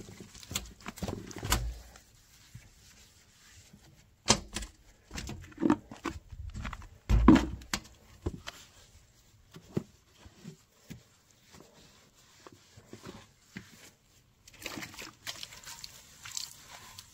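Wet sponge rubbing and squeaking over a Citroën 2CV's painted body panels and chrome hubcap, in short irregular scrubs with knocks between them. The loudest bump comes about seven seconds in.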